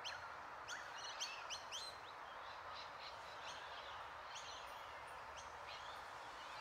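Faint bird chirps, several quick ones in the first two seconds and then sparser, over a steady outdoor hiss.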